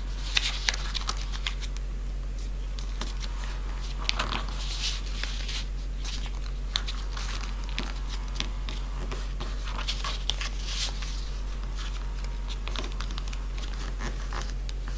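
A square sheet of paper being folded by hand, the corners brought in to the centre: irregular rustles and crisp crinkles as the paper is handled and the creases pressed flat, over a steady low hum.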